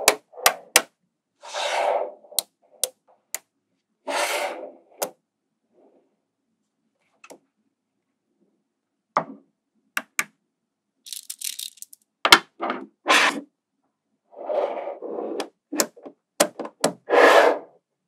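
Small magnetic balls clicking sharply as they snap together, mixed with short rattling scrapes as blocks of balls are pushed and slid into place, in scattered bursts with pauses between.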